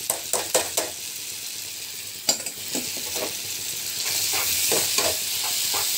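Boiled bitter gourd peels and chana dal sizzling in a pan of onion-tomato masala as they are stirred in: a steady sizzle, with a quick run of knocks of the stirring utensil against the pan in the first second and a few more around two to three seconds in. The sizzle grows louder about four seconds in.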